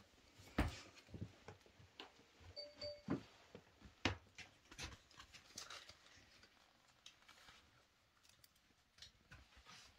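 Quiet small room with scattered light knocks and taps, about one a second, growing sparser after about six seconds, and a brief squeak about three seconds in.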